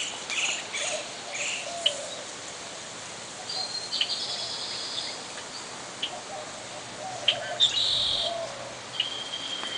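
Several small songbirds chirping and calling at the feeders, with short chirps, a couple of buzzy trills and a held high whistle near the end.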